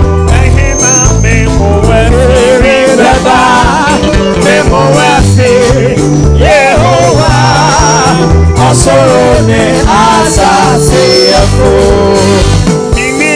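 Live gospel band playing worship music: drums and bass under trumpet and trombone, with singing.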